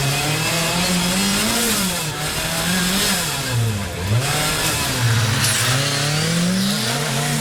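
Rally car engine revving hard, its pitch rising and falling again and again, dropping lowest about four seconds in and then climbing steadily.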